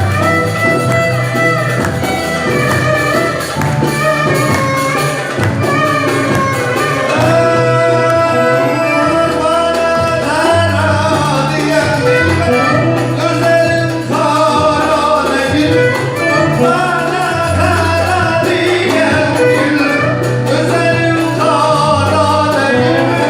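Turkish folk music: an instrumental passage of an uzun hava, with an ornamented melody over a changing bass line.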